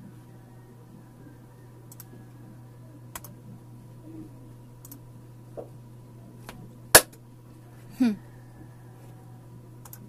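A few scattered faint clicks, then one loud sharp click about seven seconds in and a short falling swoop a second later, over a steady low electrical hum.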